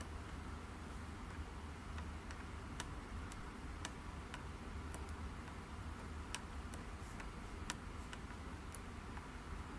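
Light, irregular clicks and ticks of metal soldering tools touching a TV circuit board and chip pins during drag soldering, about one or two a second, over a steady low hum.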